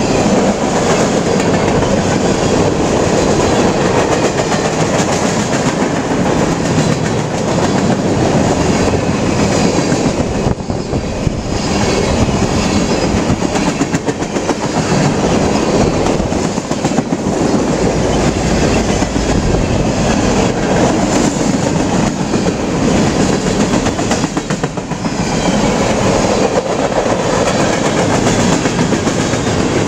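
Freight train cars rolling past close by: a steady rumble of wheels on rail with continual clicking as the wheels pass over the track.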